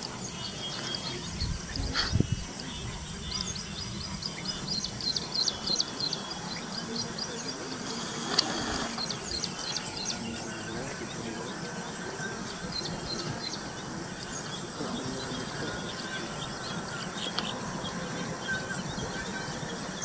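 Outdoor bird chorus: many small birds chirping in short high notes over a steady background hiss. A low thump comes about two seconds in and a sharp click about eight seconds in.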